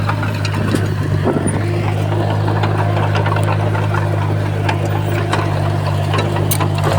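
Heavy diesel engine of earthmoving machinery running steadily at a low, even drone, with scattered clicks and rattles over it.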